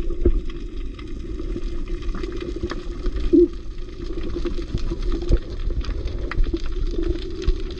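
Muffled underwater sound picked up through an action camera's waterproof housing: a steady low rumble and hum of moving water, scattered with short clicks and crackles.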